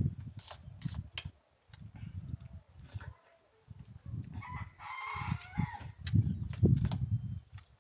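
Close-up eating sounds: bursts of chewing on puffed rice with curd, with light spoon clinks against a steel bowl. A rooster crows once in the background a little past halfway through.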